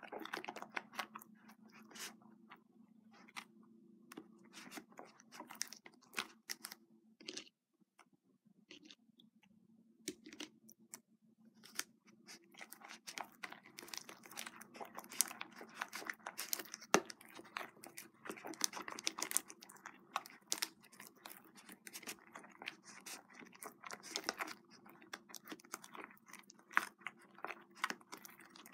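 Fluffy slime of glue, shaving foam and borax activator being mixed, making irregular sticky crackles and wet clicks as it starts to come together in clumps, with a quieter pause partway through.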